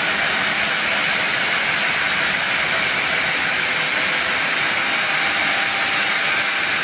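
Large circular saw blade cutting through basalt, a steady, unbroken hissing grind at an even level.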